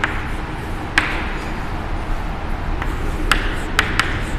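Chalk tapping and scratching on a blackboard as words are written: a sharp tap about a second in, a faint scratch after it, and three more quick taps near the end.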